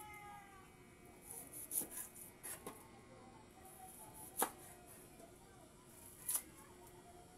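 Faint scattered clicks and taps of a knife and hands peeling and cutting an onion on a board, with a cluster of light taps early on and one sharper click about four and a half seconds in, another near six seconds.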